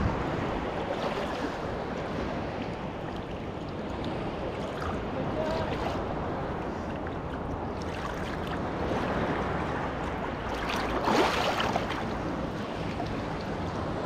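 Sea water sloshing and lapping around a camera held at the surface, with some wind on the microphone; a louder burst of splashing about eleven seconds in.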